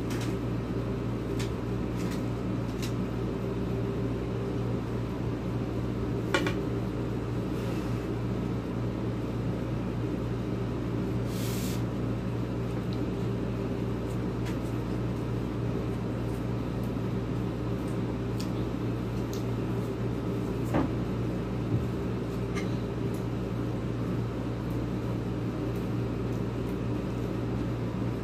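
Steady low hum of a running room appliance such as a fan or air-conditioning unit. A few light clicks and taps of eating by hand from plates break it, with a short hiss about halfway through.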